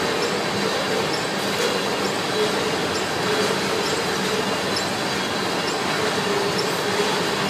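Freight train of loaded oil tank cars rolling past: a steady rumble of steel wheels on the rails, with a wavering wheel squeal that comes and goes.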